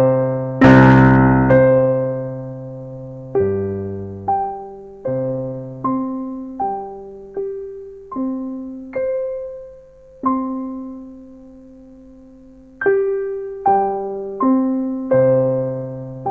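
Kurzweil KA90 digital piano playing its piano voice. A loud chord sounds about a second in, then notes and chords are struck one at a time, each left to ring and fade. After a pause of a couple of seconds, a few more notes follow near the end.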